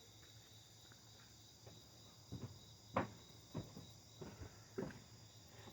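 Crickets chirping steadily in the background, with five faint knocks spread over the second half.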